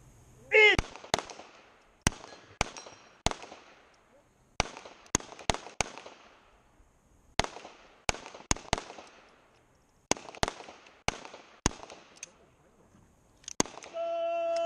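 Handgun shots on an outdoor range, among them the Colt Python revolver's: a shouted "Ild!" (fire) command about half a second in, then a string of about seventeen sharp shots at uneven intervals from the shooter and the others on the line. Near the end a long steady signal tone starts, marking the end of the firing time.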